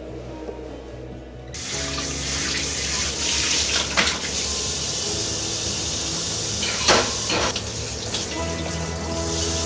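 Tap water running into a kitchen sink, turned on about a second and a half in, with hands working under the stream. A knock about four seconds in and a louder pair of knocks about seven seconds in.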